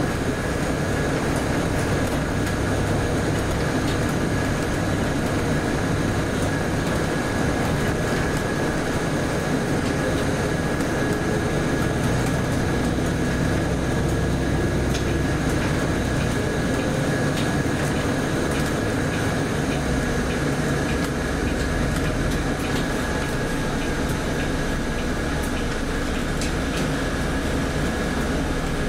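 Cabin noise inside a Volvo B8RLE city bus under way: a steady diesel engine hum and road noise, with a thin steady high tone and a few faint ticks and rattles.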